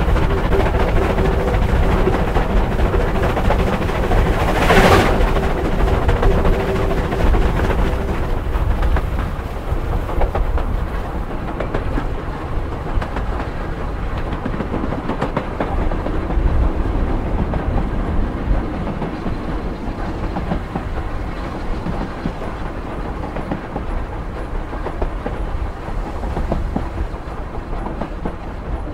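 Steam train hauled by Bulleid Battle of Britain class Pacific 34053 running along the line, heard from a coach behind the engine, with wheels clacking over the rail joints. A sharp bang comes about five seconds in, and after that the sound slowly dies away.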